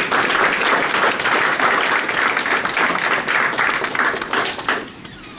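Audience applauding: dense, steady clapping that dies away about five seconds in.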